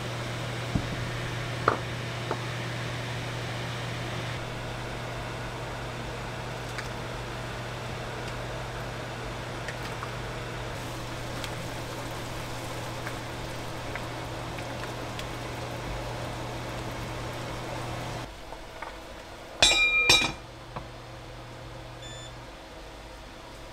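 Induction cooktop heating a pot of boiling water, with a steady low hum over the hiss of the boil. The hum drops away near the end, and then the cooktop's touch controls give two short beeps.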